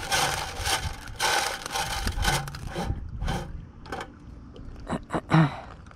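Gravel and small rocks scraping and rattling against the sluice box's wire-mesh screen and sheet-metal tray as a hand rakes through them. It dies down after about three seconds, leaving scattered ticks and a few sharp clatters near the end.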